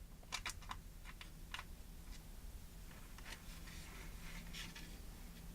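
Faint clicks and light scraping of a small screw being handled and worked into a hole: a quick run of ticks in the first second and a half, then softer scratching a few seconds in.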